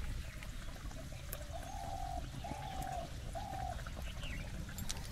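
A bird calling: three short hooting notes at one even pitch, each about half a second long and just under a second apart, over a steady low rumble.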